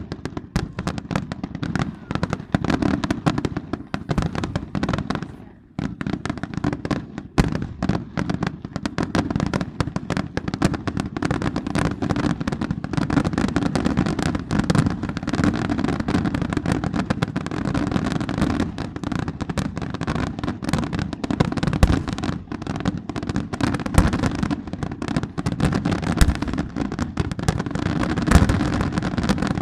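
Fireworks going off in a dense, rapid crackle of bangs, with a short lull about five and a half seconds in.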